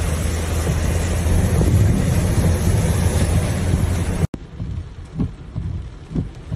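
Loud wind and road rumble with rain hiss inside a moving car, with wind buffeting the phone's microphone. After a sudden cut about four seconds in, a quieter car interior with soft low thumps about once a second, fitting the sweeps of a windscreen wiper.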